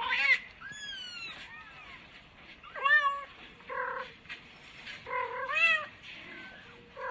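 Kittens mewing: about half a dozen short, high-pitched calls that rise and fall, one after another with brief gaps.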